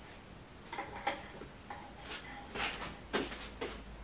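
Scattered light clicks and knocks at uneven intervals, the loudest a little after three seconds in.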